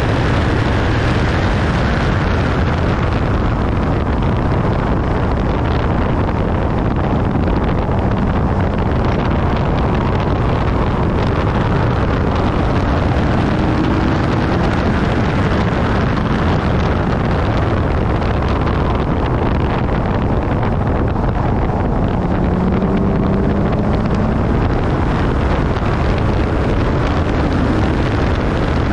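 Infiniti G37S's 3.7-litre V6 pulling hard on track, its note rising and falling with the throttle. Heavy wind rush on the camera microphone largely buries the engine.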